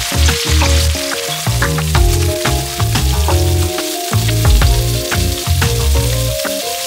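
Chopped onions and diced bell peppers frying in hot oil in a wok, a steady sizzle with many sharp crackles as they are tipped in and stirred with a spatula. Background music plays underneath.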